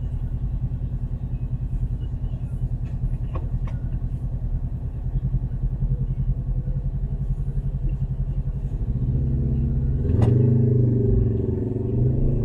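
A motor vehicle's engine idling with a low, pulsing rumble. About nine seconds in it gets louder and rises in pitch as it revs up to pull away, with a sharp click just after.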